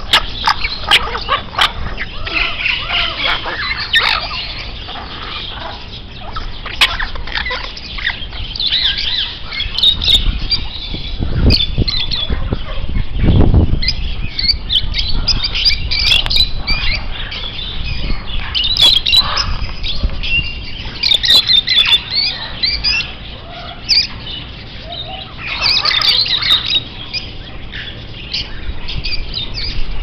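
Many caged birds, among them African grey parrots and cockatiels, squawking and chirping in a dense, overlapping chorus. Two low rumbles are heard near the middle.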